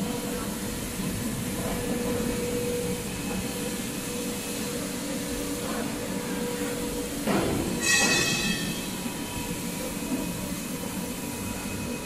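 Industrial basket washing machine running with a steady mechanical hum from its drive and chain conveyor. About seven and eight seconds in come two sharp metallic knocks, the second ringing like struck stainless steel.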